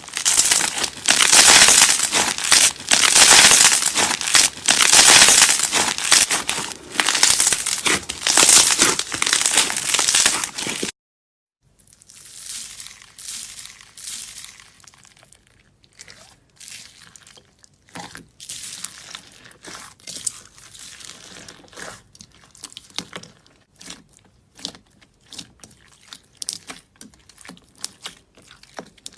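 Slime being squeezed and worked by hand, making dense crinkly crackling. After a sudden break of under a second, it goes on more quietly as scattered crackles and pops.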